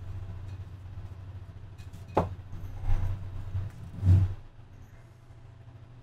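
Low steady hum with a sharp click about two seconds in and a softer thump about four seconds in: handling noises.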